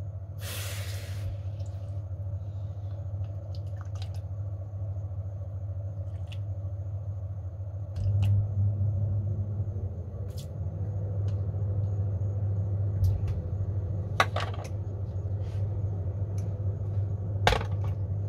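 Water poured briefly into a small plastic cup on kitchen scales about a second in, over a steady low hum. A couple of light knocks come later as the cup and the glass starter jar are handled on the bench.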